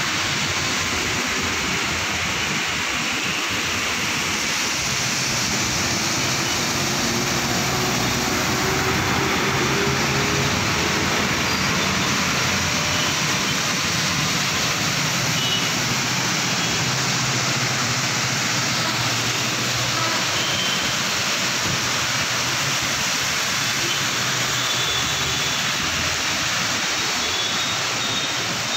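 Heavy rain pouring steadily onto a flooded road, a dense even hiss, with traffic running through the standing water.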